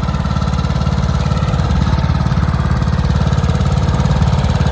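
Riding lawnmower's engine running steadily with a fast, even pulsing as the mower is driven.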